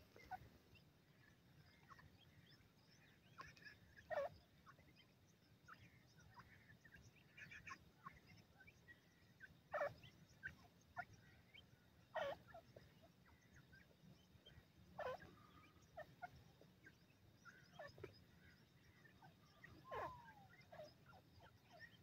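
Grey francolins foraging, giving faint, short calls every few seconds. Each call is a quick downward-sliding note, and a longer curving call comes near the end.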